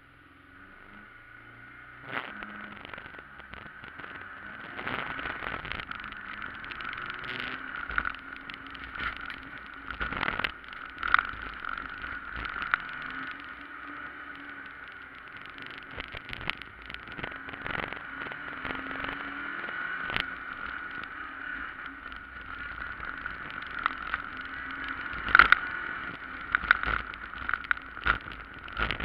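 Fiat Punto rally car heard from inside its cabin, setting off about two seconds in and then driving hard along a stage. Its engine and drivetrain run steadily, with a whine, and frequent knocks and bangs come from the suspension and body over the rough road.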